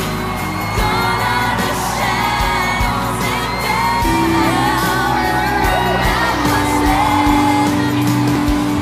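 Live pop concert music with singing over a steady beat, and whoops from the crowd.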